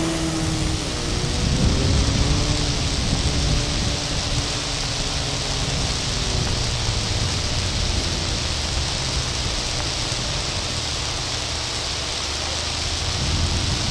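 Half-track snow buggy's engine running faint and distant under a steady rushing hiss, its pitch gliding up and down a second or two in and growing louder again near the end.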